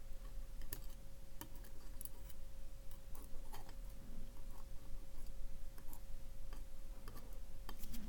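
Small brass key pins from a padlock core being set one by one into the grooves of a metal pinning tray with tweezers: scattered faint, light clicks of metal tapping metal.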